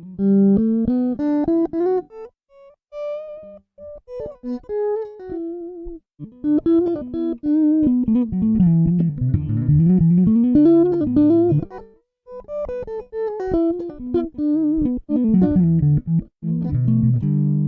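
Electric guitar played through the Ikon WCM88 sound card: single-note melodic lines with slides and bends, cutting out abruptly a few times between phrases. The sound card's noise filter fades the guitar in and out and gives it a phasing effect that the player finds worse than expected.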